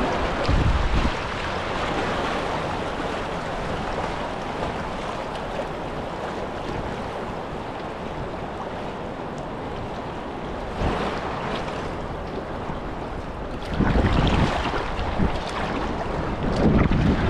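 River water rushing steadily around a whitewater kayak, with wind buffeting the microphone now and then: a brief buffet early, one near the middle, and a longer stretch near the end.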